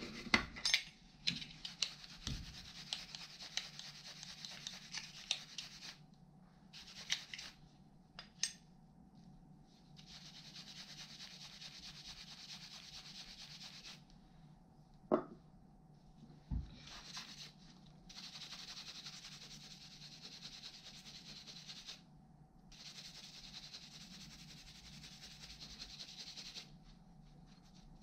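Gloved hands rubbing and working a rusty metal hand tool, in several stretches of steady rubbing a few seconds long. There are a few sharp metal clinks near the start and about halfway through.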